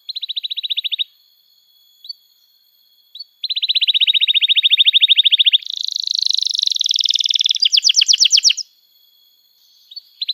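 Domestic canary singing: a fast trilled roll of repeated notes, a single chirp or two, then a long roll about three seconds in that runs into a buzzier phrase and a slower run of sweeping notes, with another chirp near the end.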